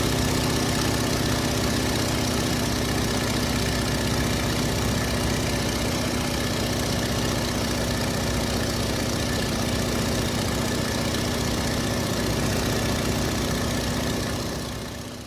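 Stearman biplane's radial engine heard from the cockpit, running steadily at idle, then fading out near the end.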